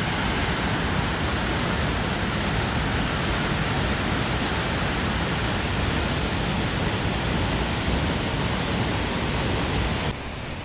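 Waterfall rushing: a loud, steady roar of falling water spread evenly across all pitches, dropping sharply in level near the end.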